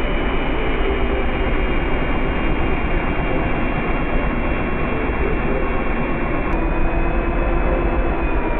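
Cordless drill with a spade bit boring through a wooden stud, the motor running steadily under load as the bit cuts, its whine dipping slightly near the end.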